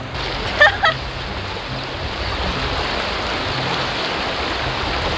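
Mountain river water rushing steadily. About half a second in come two short, high-pitched calls.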